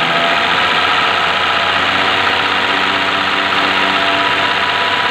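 Diesel injection pump test bench running steadily, driving a Hino inline fuel injection pump during calibration.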